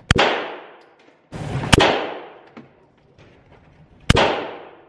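Three handgun shots fired at an indoor range, about a second and a half and then two and a half seconds apart. Each is a sharp crack followed by a short echoing ring-out.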